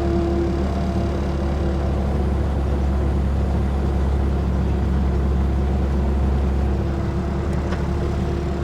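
Steady low mechanical hum with a few faint steady tones above it.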